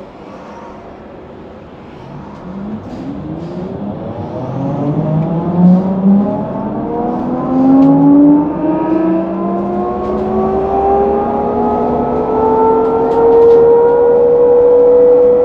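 HESS Swisstrolley 4 trolleybus's electric traction drive whining as the bus accelerates: several tones glide upward together from about two seconds in and keep climbing, growing louder.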